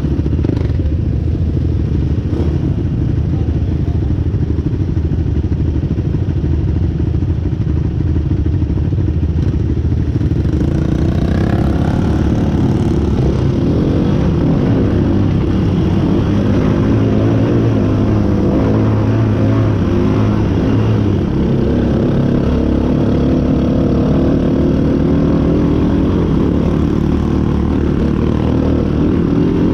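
Off-road vehicle engine running on a trail ride, rising to higher revs about ten seconds in and holding there under load.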